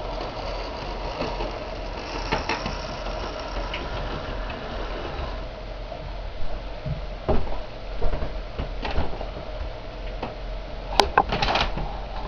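Model train running along the track: the motor gives a steady mechanical whirr, with scattered clicks as the wheels cross the rail joints. A few sharper clicks come near the end.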